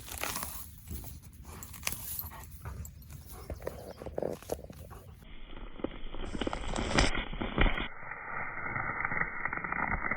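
A dog tearing and crunching the roots of dug-up grass weeds in its jaws: a rapid run of ripping and crunching noises. About five seconds in, the sound turns slowed-down, lower and duller, as in slow-motion playback.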